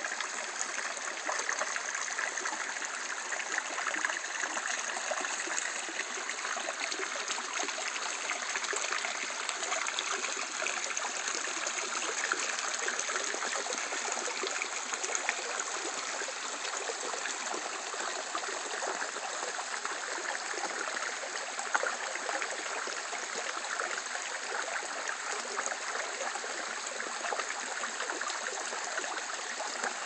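Small forest brook trickling and burbling over rocks, a steady rushing murmur throughout, with one brief click about two-thirds of the way through.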